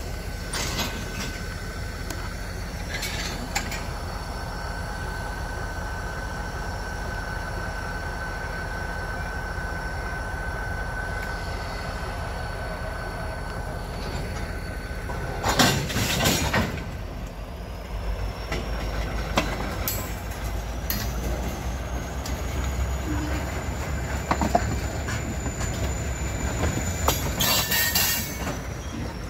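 Railroad tank cars rolling slowly past during yard switching, their steel wheels squealing thinly on the rails. There are sharp bangs of couplers and slack a few times, the loudest about halfway through, and a low rumble grows louder in the second half.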